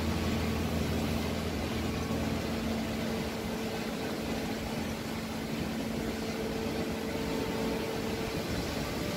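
Steady mechanical hum, engine-like, with a faint sustained whine running through it.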